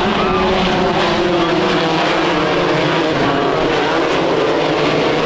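Several 1600-class off-road race buggies running at high revs together, their engine pitches overlapping and gliding up and down as they race.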